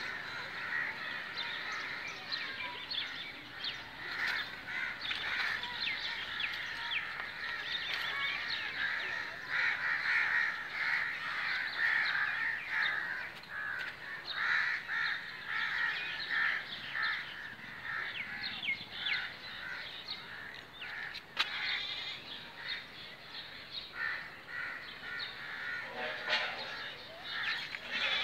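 Many birds calling and chattering at once, as from a large flock, in a dense, continuous din of short overlapping calls.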